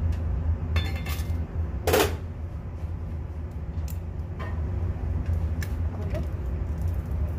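Clinks and knocks against a metal cooking pot as a live coal is set into a foil cup on the keema for coal smoking, with one louder knock about two seconds in and a few lighter clicks after. A steady low hum runs underneath.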